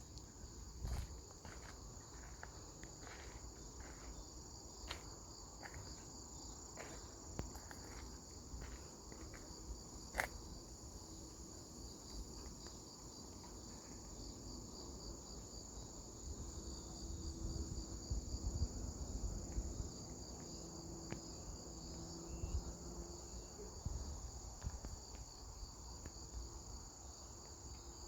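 Insects trilling steadily at a high pitch, a continuous pulsing chorus, with a few sharp clicks or taps in the first ten seconds and a low rumble that swells from about the middle to near the end.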